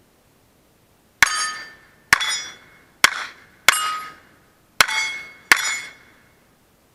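Six pistol shots from a Browning Buck Mark .22 LR, fired steadily over about four seconds at steel targets. Each shot is followed by a brief metallic ring as a steel plate is hit, the ring pitched differently from plate to plate.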